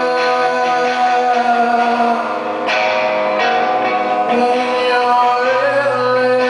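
Live rock concert music: a male vocalist sings long held lines over electric guitar and band accompaniment.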